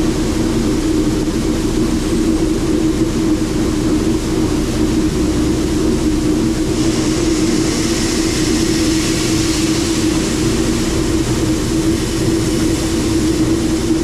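Shelled corn pouring from a hopper-bottom grain trailer's gate through the dump-pit grate, over a steady hum of running grain-handling machinery. About halfway through, the hiss of the falling grain gets louder.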